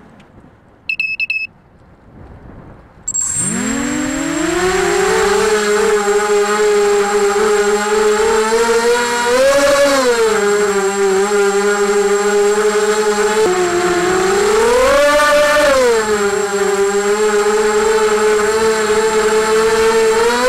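A quadcopter's brushless motors spinning 6x3-inch (6030) propellers. After a short beep about a second in, the motors spin up about three seconds in to a steady whine. The pitch climbs twice as the throttle is raised and settles back each time. With these props the motors need about half throttle to hover.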